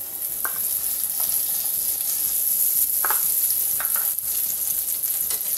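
Butter melting and sizzling in a hot frying pan, swelling during the first second, with a few light knocks of a spoon against the pan.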